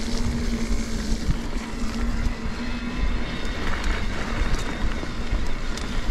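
Ride noise from an electric mountain bike on a wet trail: wind buffeting the microphone over the steady rumble and rattle of the bike. A steady low hum runs through the first half and stops about three seconds in.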